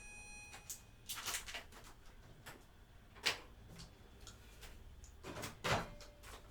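Faint, scattered household knocks and clicks, like cupboard doors or drawers being opened and closed, with the loudest knocks about a second in, near the middle and near the end.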